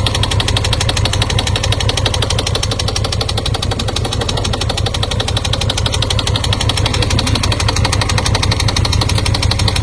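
2018 Honda Gold Wing's flat-six engine running with a rapid, even knocking. It doesn't normally run like that, a sign of an engine fault.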